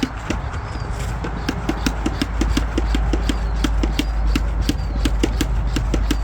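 A small motor running steadily, its hum building over the first couple of seconds, with a regular sharp clicking about four or five times a second.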